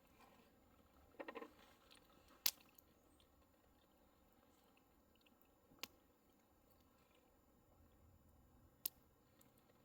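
Faint chewing with a few sharp clicks, one after about two and a half seconds, one near the middle and one near the end, and a short run of small ticks about a second in.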